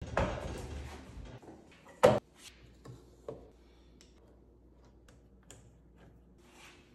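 Rolling workshop cabinet rumbling on its casters across a concrete floor, then one sharp loud knock about two seconds in. After it come a few light clicks and taps as a rubber dust hose elbow is pushed onto a benchtop planer's dust port and its metal hose clamp is tightened.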